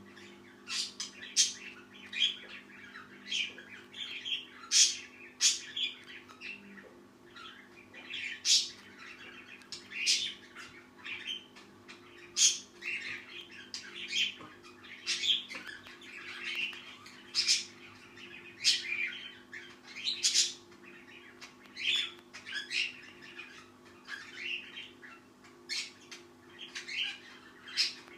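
Pet bird making sleepy crackles: short, scratchy chirps repeated irregularly about once a second. A faint steady hum runs underneath.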